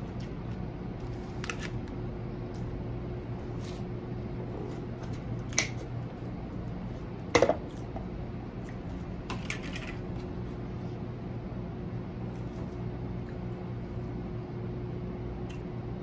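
Scattered clicks and taps of plastic takeout containers and a fork being handled, the loudest a knock of a clear plastic lid about seven seconds in, over a steady low hum.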